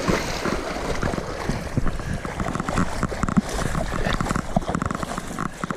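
Water sloshing and splashing around the legs of an angler wading in a river, with scattered short knocks and clicks.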